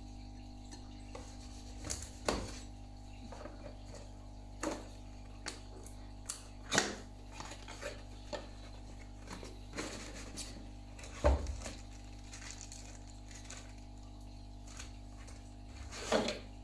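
Unboxing a small cardboard camera box: a knife scraping at the seal, the inner tray sliding out and packaging being handled, heard as scattered taps, scrapes and knocks, the loudest about 7 and 11 seconds in and again near the end, with plastic crinkling at the end.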